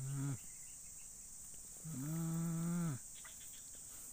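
Steady high-pitched insect chorus, crickets or similar. Over it, two low, drawn-out, even-pitched calls or hums: a short one at the start and a louder one lasting about a second, a couple of seconds in.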